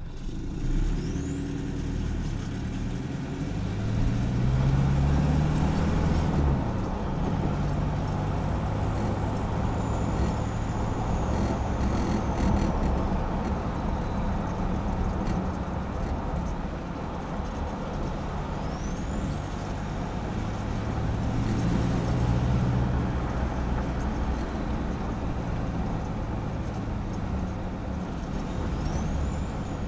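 Exhaust of a stock Isuzu KB300's 3.0-litre four-cylinder turbodiesel, recorded from under the pickup while driving. The engine note rises twice as it accelerates, a few seconds in and again past the middle. Each time a high whistle climbs with it as the turbo spools.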